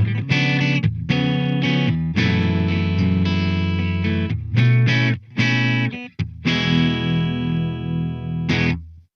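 Tokai Love Rock LS-136F Les Paul-style electric guitar with two humbuckers, played with a clean tone: chords with short stops between them. About six seconds in, a chord is left to ring for a couple of seconds, then one last short strum, and the sound cuts off abruptly just before the end.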